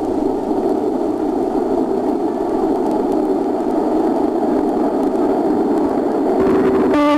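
Diesel passenger train approaching and running past close by, a loud steady rushing rumble. A steady pitched tone joins near the end.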